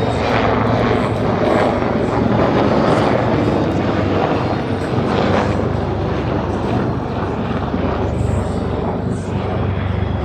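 Aircraft engine noise, loud and steady.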